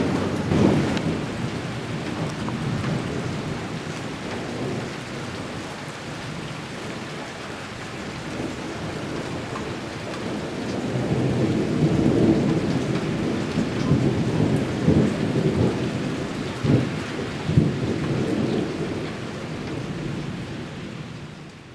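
Thunder rumbling over steady heavy rain in a severe thunderstorm. The rumble eases in the middle, swells again a little past halfway with a couple of sharper claps, and the sound fades out near the end.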